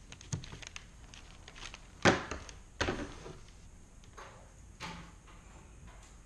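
Handling sounds on a workbench: a few separate knocks and rustles as leather pieces and kraft paper are moved about. The loudest knock comes about two seconds in, and softer ones follow a little later.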